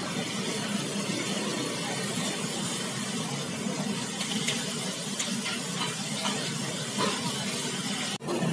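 Beef sizzling on a flat-top griddle, a steady hiss with a few light clicks as the cook works it. The sound cuts off just before the end.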